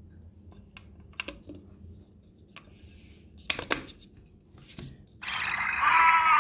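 Small plastic clicks and knocks as a AAA battery is fitted into a digital alarm clock's battery compartment, the loudest about three and a half seconds in. About five seconds in, the clock powers up and its speaker starts a loud electronic sound with tones that glide up and down.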